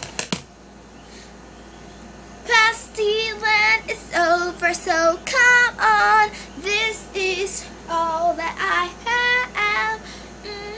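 A girl singing solo, holding wavering notes with vibrato, starting about two seconds in; a few sharp clicks come just before.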